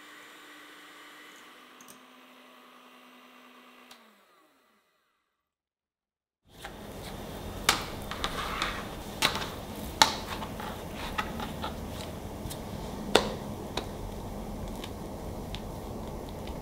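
Electric hand mixer whipping heavy cream. Its motor hum drops in pitch about two seconds in, then winds down to a stop about four seconds in. After a short near-silent pause come sharp taps and soft handling sounds as thin crepes are laid out on a countertop, over a steady hiss.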